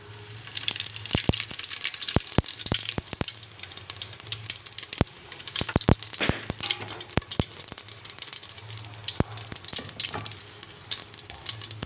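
Cumin seeds sizzling and crackling in hot refined oil at the start of a tadka. Many sharp pops sound over a steady hiss.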